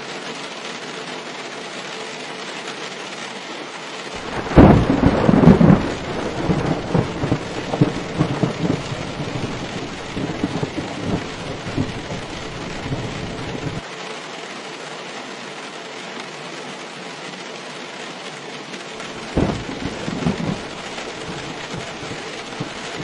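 Steady rain falling, with a sudden crack of thunder about four seconds in that rolls and rumbles for around ten seconds, then a second shorter peal of thunder near the end.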